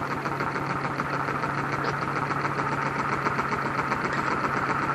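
Small 3D-printed compressed-air engine with a ball as its piston running fast and steadily, making a rapid, even mechanical chatter.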